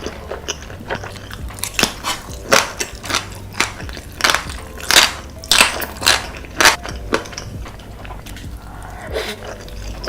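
Close-miked mukbang eating: a person biting and chewing crunchy food, with a run of sharp, irregular crunches, loudest in the middle.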